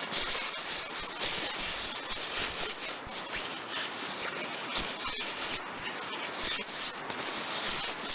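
Camping gear being handled and packed: a continuous, irregular scratchy rustling and rubbing.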